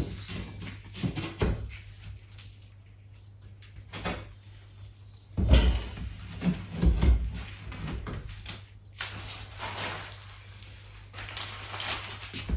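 Irregular knocks and thuds with stretches of scraping, the heaviest knocks about five and a half to seven seconds in, over a steady low hum.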